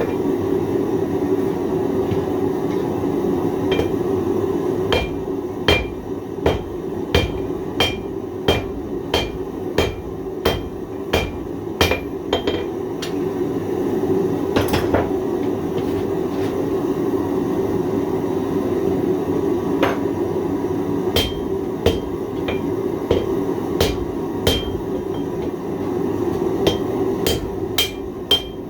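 Hammer blows on hot 1095 carbon steel over an anvil, each with a short metallic ring. They come in steady runs of one to two strikes a second, with a pause of several seconds in the middle. Under them runs the steady roar of the forge fire.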